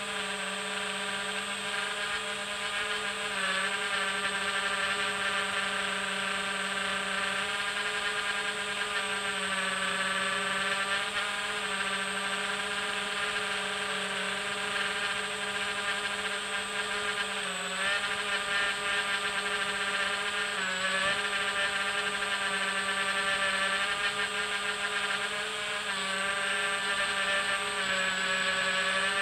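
Electric motors and propellers of a small radio-controlled aircraft whining steadily, close to the onboard camera. The pitch swings up and down several times with the throttle, over a thin steady high tone.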